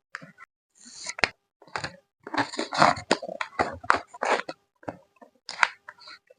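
Packing materials being handled by hand for photo cards: irregular spurts of crinkling and rustling with a couple of sharp clicks, separated by short pauses.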